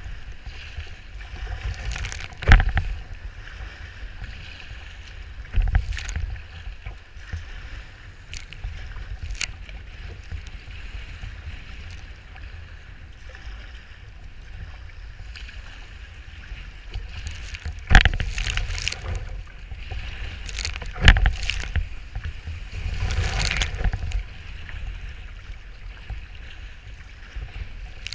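Sea kayak being paddled through choppy, breaking waves in strong wind: a steady low wind rumble on the microphone over sloshing water, broken by a handful of sharp, loud splashes as waves slap the boat and spray hits the camera.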